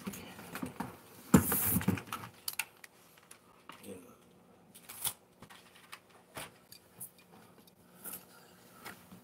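Handling noise from a phone being carried and moved about: scattered clicks and knocks with clothing rubbing over the microphone, and a louder clatter about a second and a half in.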